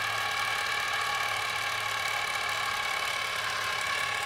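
Vintage 16mm movie camera's drive mechanism running: a steady, even whir with a constant high whine.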